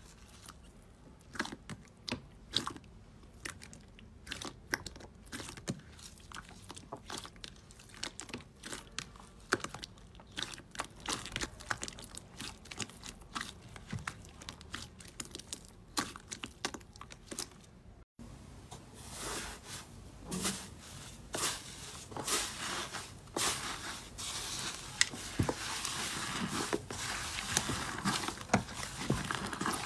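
Hand-squeezed slime making irregular sticky crackles, pops and clicks as fingers press and knead it. About halfway through a new batch of slime is worked and the crackling turns denser and louder.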